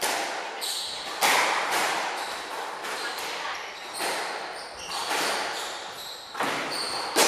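A squash rally: the ball is struck by rackets and smacks off the court walls, giving sharp echoing impacts every half second to a second, irregularly spaced. Court shoes squeak on the wooden floor now and then.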